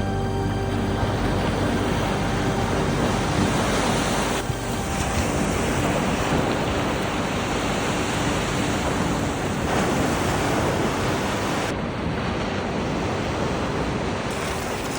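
Sea surf: waves washing onto the shore as a steady rushing wash that swells and eases a few times.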